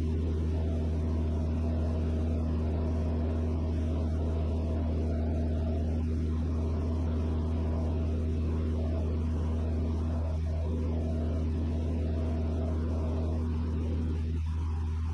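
Vans RV-6A's piston engine and propeller running steadily in cruise, a constant low drone heard from the cockpit.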